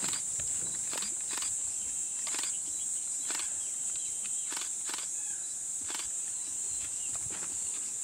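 Steady high-pitched drone of insects, with scattered soft clicks over it every half second to a second.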